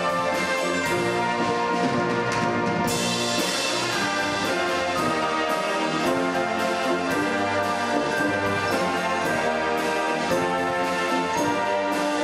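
Orchestral music led by brass, with held chords, growing brighter about three seconds in.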